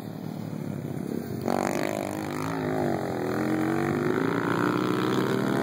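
Small youth ATV engine running and revving as the quad rides around a dirt track, its pitch rising and falling with the throttle. It is faint at first and grows louder about a second and a half in.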